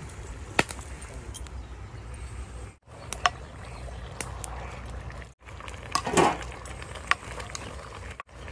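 A metal ladle clinking against a large metal cooking pot a few times as meat is put in and stirred, with a short louder scrape or splash about six seconds in, over a steady low rumble. The sound cuts out briefly three times.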